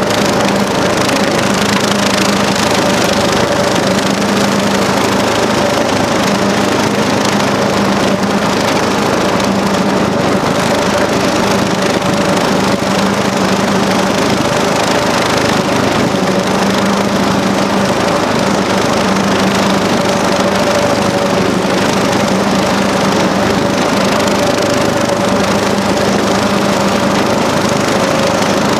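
Steady motor noise: an unbroken rushing sound with a constant low hum and a higher steady tone above it, holding at one speed.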